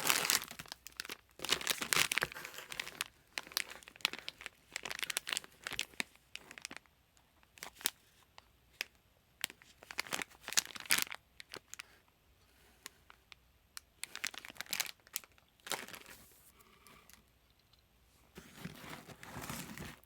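Packaging being torn open and crinkled by hand, coming in irregular bursts of rustling and tearing with sharp crackles.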